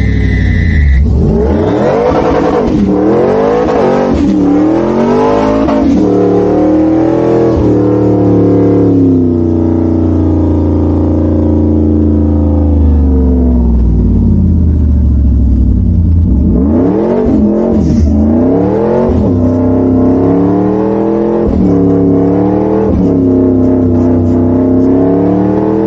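Supercharged 5.4 L V8 of a Ford SVT F-150 Lightning pickup revving hard during a burnout, spinning the rear tyres. The revs climb and fall in waves, are held high for several seconds in the middle, dip, then rise and fall quickly again toward the end.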